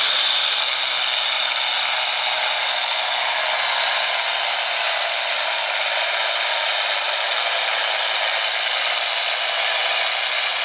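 International farm stock tractor's diesel engine at full throttle, pulling the sled under heavy load: a loud, steady rushing roar that holds without a break.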